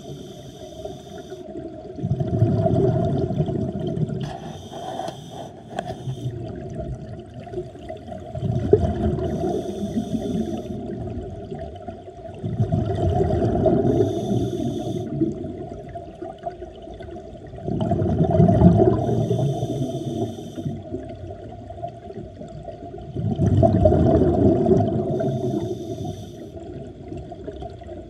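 Scuba exhalation bubbles bursting from a diver's regulator, heard underwater: a gurgling rush of bubbles about every five to six seconds, five times, in step with the diver's breathing. A steady hum runs underneath.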